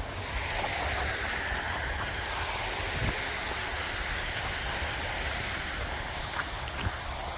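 Snowstorm outdoor ambience: a steady rushing hiss that swells in at the start, with wind rumbling low on the microphone and a few faint ticks.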